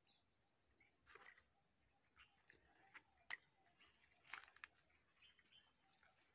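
Near silence: faint outdoor ambience with a steady high thin whine and a few faint scattered clicks.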